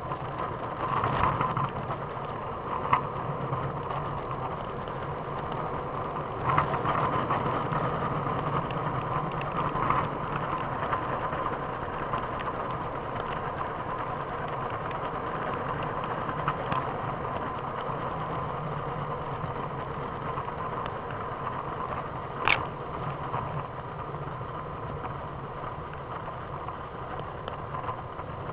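Steady rolling noise of a Trikke scooter's wheels on pavement, heard from a camera in a pocket, with a few scattered clicks and one short, sharp squeak about 22 seconds in.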